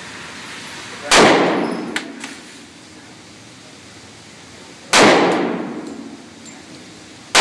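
Para Ordnance Warthog pistol fired three times, slow aimed shots a few seconds apart, each with a long echoing tail. It cycles each round on full-power ammunition without jamming.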